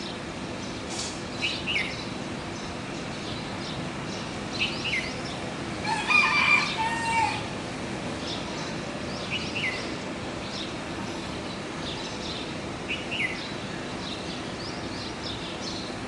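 Birds calling: short, high, downward-slurred calls repeated every few seconds, and one louder, longer call about six seconds in, over a steady low background hum.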